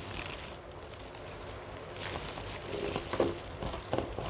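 Scissors cutting through a thin plastic shopping bag, the plastic crinkling and rustling as it is handled, with a few faint snips in the second half.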